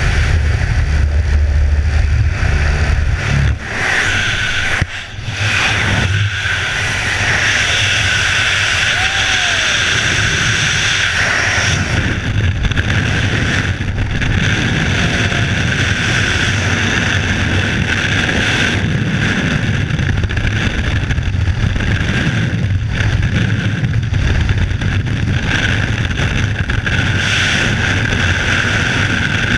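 Rushing wind on a helmet camera, first at the open door of a small plane with the engine humming low, then, after a brief drop about five seconds in, a steady roar of air through the rest of the freefall.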